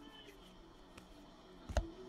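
Basketball trading cards being flipped through by hand, with a faint click about a second in and a sharper tap of card on card a little before the end. Faint background music runs underneath.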